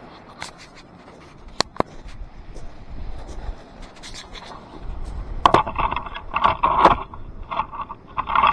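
Shingle pebbles scraping and clacking right at the microphone as a small camera is moved over and set down on a pebble beach. A few sharp clicks come in the first two seconds, then a run of loud, gritty crunching from about halfway on.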